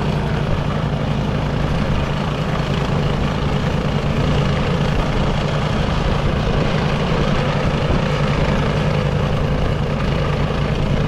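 Craftsman snowblower's engine running steadily under load while it clears snow, a constant droning note with no change in speed.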